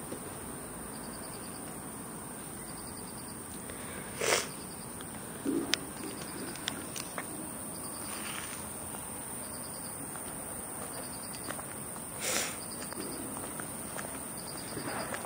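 Insects chirping: a short pulsed chirp at one high pitch repeats about every second and a half over a steady high hiss. Two brief louder scuffs come about four and twelve seconds in.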